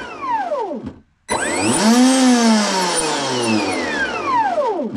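Scorpion 4035 800 kV brushless outrunner motor, a helicopter motor fitted in an RC boat, spun out of the water. Its whine, several pitches together, falls as it winds down and cuts out about a second in. A throttle blip then brings it up quickly, followed by a long falling whine as it coasts down.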